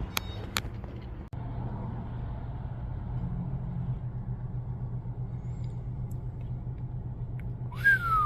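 A steady low mechanical hum with a faint even pulsing, like a motor running, with two sharp clicks in the first second and a short falling whistle-like tone near the end.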